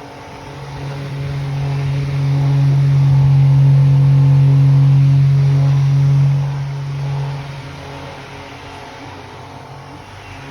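12 V automotive mini fan running with a steady motor hum; it grows louder from about a second in and drops back after about six seconds.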